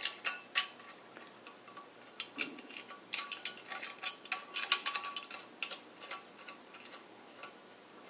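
Light metallic clicks and clinks of a steel rain-tight EMT connector and its lock nut against a metal electrical box as they are handled, many small ticks coming in clusters.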